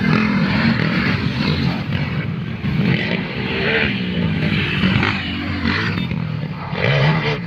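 Several dirt bike engines revving and accelerating as the bikes race past and pull away, their pitch rising and falling with the throttle.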